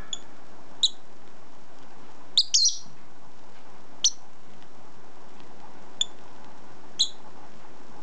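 Rosy-faced lovebird giving about eight short, high chirps at irregular intervals, three of them in quick succession about two and a half seconds in.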